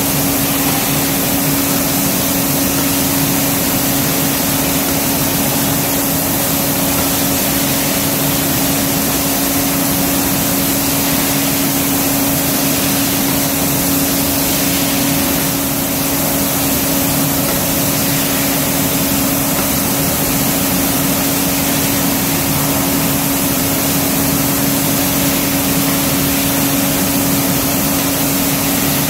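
Paint-spraying equipment running steadily: a constant motor hum over a hiss of spray, with no change in pitch or level.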